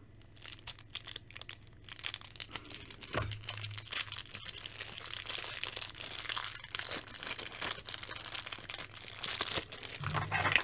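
Thin clear plastic bag crinkling and being torn open by hand. Scattered sharp crackles give way after about two seconds to a dense, continuous crackling.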